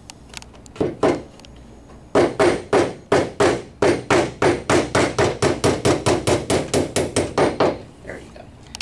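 Hammer tapping a glued 2-inch wooden dowel pin down through a wooden tabletop into the top of a table leg. One knock about a second in, then a quick, steady run of taps, about four a second, for some five seconds.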